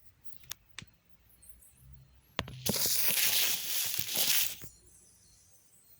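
A few sharp knocks, then heavy furniture dragged and scraped for about two seconds as it is pulled away from a wall.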